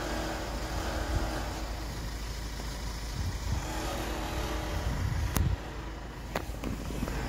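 Chairlift running: a steady mechanical hum and rumble from the lift machinery, with two sharp clicks in the second half, about a second apart.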